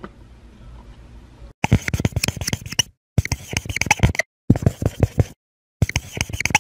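Marker writing: quick scratchy strokes with small squeaks, in bursts broken by short silences, starting about a second and a half in as the logo lettering is drawn. Before that, only a faint low hum.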